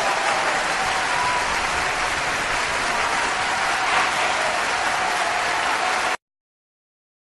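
Audience applause: dense, steady clapping from a large crowd that cuts off suddenly about six seconds in.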